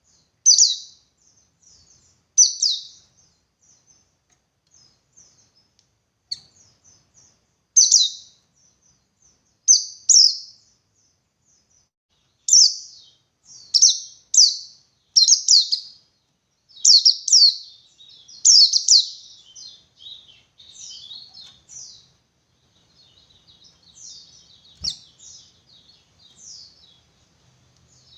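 Oriental white-eye (pleci buxtoni) singing in the 'ngalas' style: a run of short, loud, high-pitched twittering phrases about a second or two apart, with softer chatter between them in the later part. A single sharp click sounds once, near the end.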